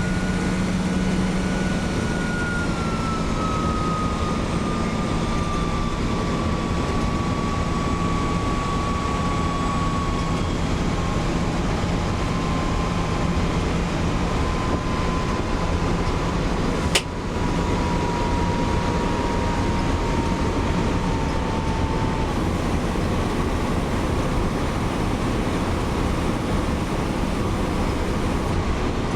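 Iveco 170S28 bus engine under way, with a shrill turbocharger whine over the road and engine noise that slowly drops in pitch over about twenty seconds. The owner puts the strident turbo noise down to a turbo problem that came from the factory. A single sharp click sounds about two-thirds of the way through.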